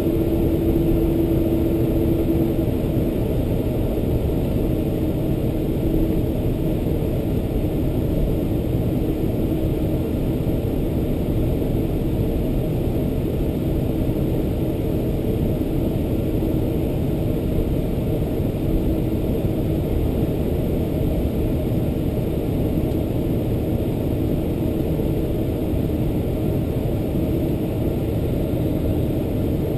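Steady low rumble inside the cabin of a Boeing 747-400 taxiing, its General Electric CF6-80C2 turbofans at low taxi thrust. A faint hum sits in the rumble, clearest in the first couple of seconds, then comes and goes.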